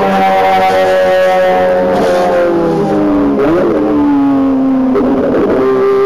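Ferrari race car engine at high revs, its pitch falling steadily over about five seconds with a brief blip a little past the middle, then holding steadier near the end.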